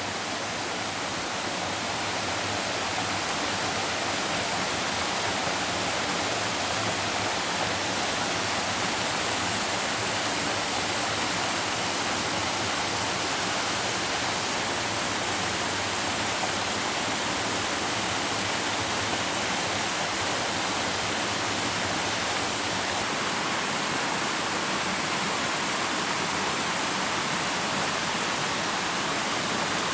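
Dodd Creek, a mountain stream, rushing over rock: a steady, even roar of running water that grows a little louder over the first couple of seconds.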